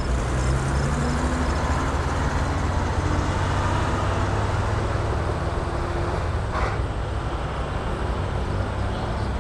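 Engines of vintage fire trucks running as the trucks drive past one after another in a slow line: a steady low engine drone.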